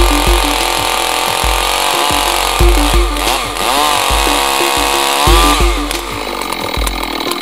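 Two-stroke chainsaw running at high revs as it cuts into a block of wood, its pitch dipping under load about four seconds in and climbing back shortly after.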